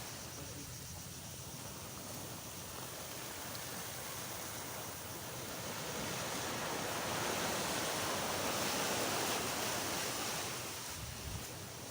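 Sea waves washing onto the beach: a steady surf noise that swells in the middle and eases off near the end.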